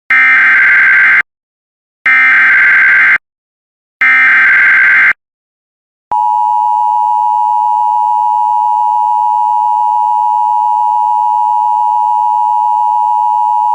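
Emergency Alert System header: three short bursts of SAME digital data tones, each about a second long with a second's gap between them. About six seconds in, the steady two-tone EAS attention signal begins and holds. Together they open an Evacuation Immediate alert.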